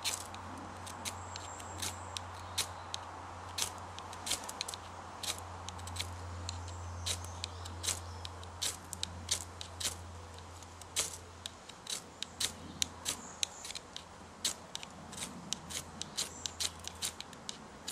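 Ferrocerium rod scraped again and again with the back of a knife: a run of short, sharp rasping strikes at an irregular two to three a second, each throwing sparks at birch bark shavings that are not catching.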